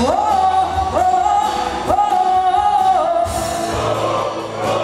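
A live band plays while a female singer holds three long notes, each sliding up into it. The voice stops about three seconds in and the band plays on.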